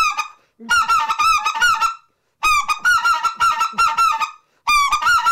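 RedBone short-reed goose call (spec call) blown by mouth, giving quick runs of goose honks and clucks in imitation of geese. Each note breaks between a lower and a higher pitch, and the runs come about every two seconds with short pauses between them.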